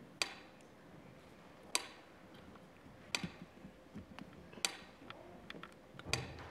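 Mechanical pendulum metronome ticking at a slow tempo, one sharp tick about every second and a half.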